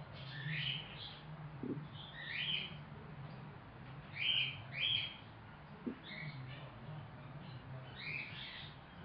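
Young cockatiel chirping: a run of short chirps every second or so, the two loudest about four and five seconds in, over a steady low hum.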